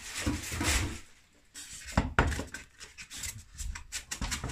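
Hands handling a new compound mitre saw: a rustle at first, then after a brief pause a string of knocks and clicks from its plastic and metal parts being moved.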